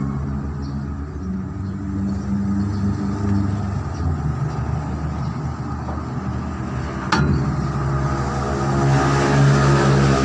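Diesel truck engine running, with a sharp click about seven seconds in; it grows louder and fuller from about eight seconds in, as if revved.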